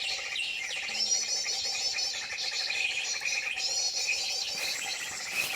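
High-pitched bird calls in quick, wavering, repeated phrases that come in several bursts, over a steady high hum of insects or birds.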